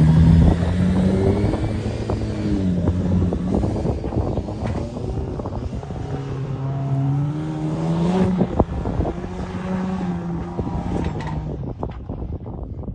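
A vehicle engine revving up and down, its pitch rising and falling several times while driving over desert sand, with scattered knocks and rattles; the engine note drops away near the end.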